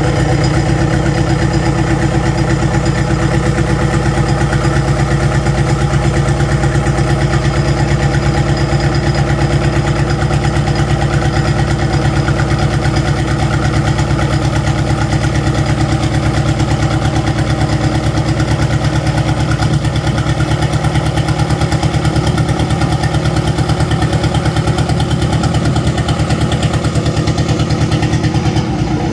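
Mitsubishi 4D31 four-cylinder diesel engine of a wooden cargo boat, running steadily at an even speed.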